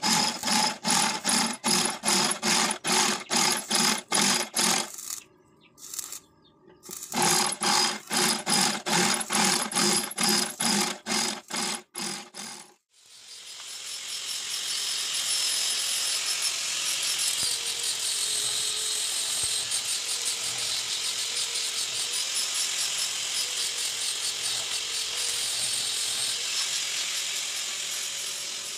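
Corded electric drill boring through a steel plate, its motor running in quick pulses, about three to four a second, with one short pause. About thirteen seconds in the drilling stops and an arc welder takes over with a steady crackling hiss.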